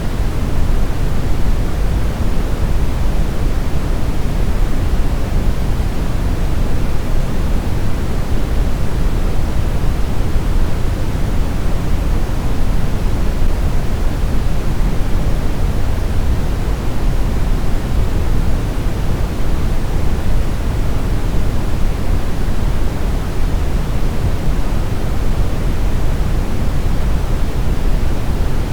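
Steady brown noise: an even, deep rumbling hiss weighted heavily toward the low end, with no change or events.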